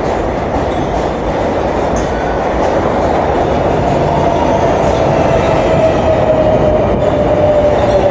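New York City subway train pulling into the station: a steady rumble of wheels on rails, growing louder as it comes in, with a whine that falls slowly in pitch as the train slows along the platform.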